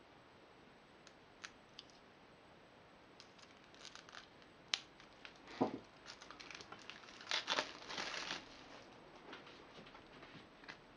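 Plastic shrink-wrap being cut open and peeled off a deck of cards: crinkling and tearing with a few sharp clicks, mostly in the second half and busiest about two-thirds of the way through.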